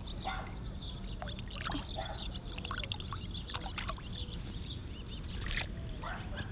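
Shallow water sloshing and trickling in short, scattered splashes as someone wades and scoops at it with their hands, over a steady low rumble.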